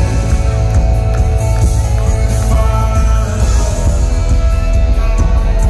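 Live band music played through a concert hall's PA, heard from among the audience: a male singer with acoustic guitar, keyboard and electric guitar over heavy bass.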